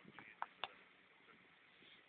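Near silence: faint outdoor background with a few brief faint clicks in the first second.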